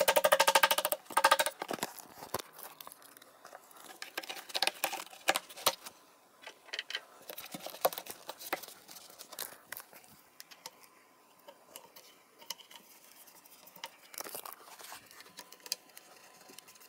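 Plastic furniture feet being pressed and worked onto the corners of a particleboard chest-of-drawers frame. A loud rasping squeak lasts about a second and a half at the start, then scattered light clicks and taps of plastic against the board follow.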